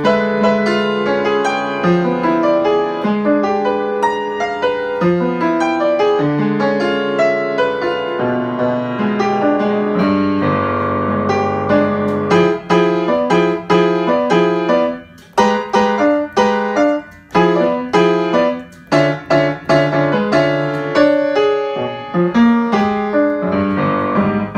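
Upright piano played solo in a jazz style: arpeggios and chords built on a symmetric, diminished-type chord, moved around the keyboard. Held, ringing chords fill the first half, then short detached chord stabs with brief gaps between them.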